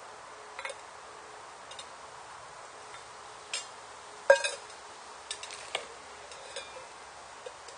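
Zebra stainless steel camping pot and its parts being handled: scattered metal clinks and knocks, the loudest a sharp clink about four seconds in.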